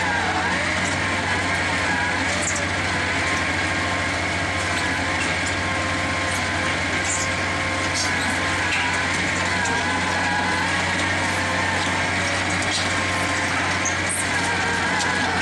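Diesel engine and hydraulics of a tracked auger drilling rig running steadily, with a slightly wavering whine over a low hum and scattered small clicks.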